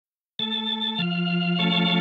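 Organ music: held chords that start about half a second in and change twice, with a steady bass note under them.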